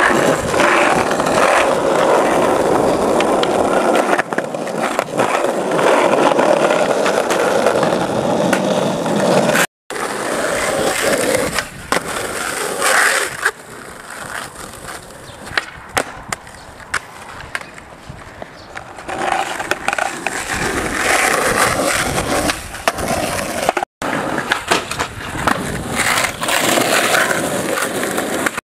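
Skateboard wheels rolling, with scattered sharp clacks of the board from tricks and landings. The sound drops out to silence three times for a moment.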